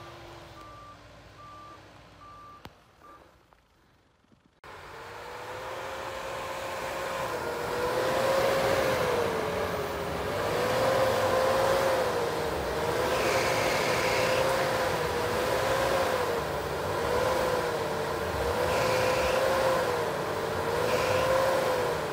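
Pickup truck engine running and revving up and down in a steady rhythm, about once every two seconds, as the truck works through deep snow. It starts abruptly about five seconds in, after a faint, nearly quiet stretch.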